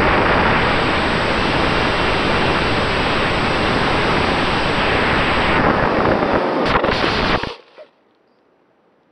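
Airflow and motor noise of an Eachine Micro Skysurfer RC plane heard through its onboard camera, with a faint steady whine under the rush. A few knocks near the end as it comes down in the grass, then the noise cuts off suddenly to near silence.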